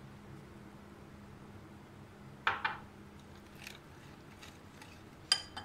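Metal wire whisk clinking against a glass mixing bowl: two short ringing clinks, one about halfway through and one near the end, with faint light taps between over a low steady hum.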